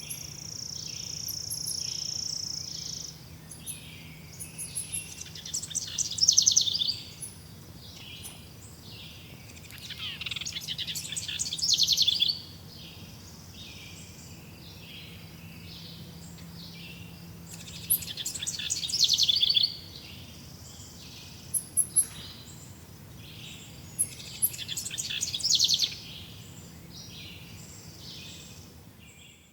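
Forest birds singing. A loud, fast song phrase comes about every six to seven seconds, four times, over a steady background of softer, evenly repeated chirps. The sound fades out at the very end.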